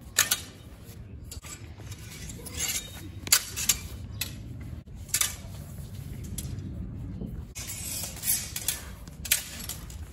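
Steel training swords clashing in a fencing bout: sharp metallic clinks and strikes at irregular intervals, about a dozen in all.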